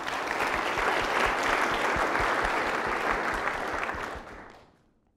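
Audience applauding in a large hall at the end of a talk; the clapping holds steady for about four seconds, then fades out near the end.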